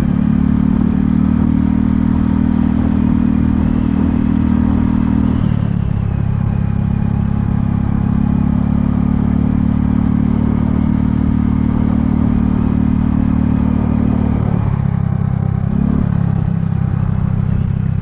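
Kymco People 250 scooter's single-cylinder four-stroke engine running under way. Its exhaust leaks are sealed with JB Weld, and the owner finds it quieter, with the sound coming from the muffler. The engine note drops about five seconds in and again near the end, with a short rise in revs just after.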